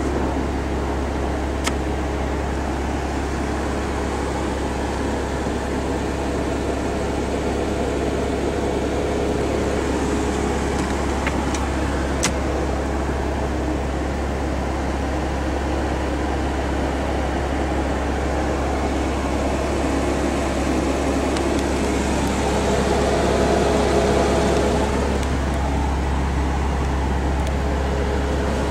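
Steady low hum of a vehicle with a faint steady tone, swelling slightly near the end, with a couple of light clicks.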